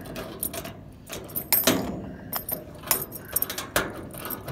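Lock-picking tools clicking, scraping and jangling in a half euro cylinder lock, in an irregular run of small metal clicks and rattles as the lock is picked.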